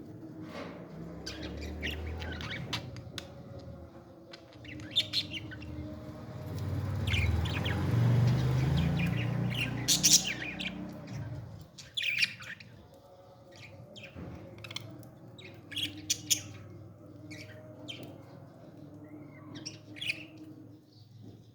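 Parrot chicks calling during feeding: many short, scattered chirps and squawks. A low rumble swells up midway and is the loudest sound for a few seconds.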